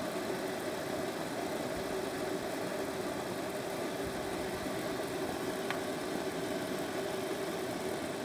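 A lidded pot of one liter of water on a soda-can groove alcohol stove, rumbling steadily as it comes up to a rolling boil.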